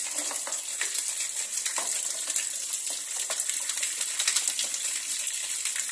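Tap water running and splashing into a basin of soapy water as a plastic washing-machine part is scrubbed with a toothbrush, with many small clicks and splashes throughout.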